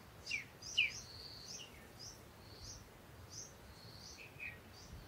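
Bird chirping: a string of short, high chirps repeating about every half second, with two louder falling notes in the first second.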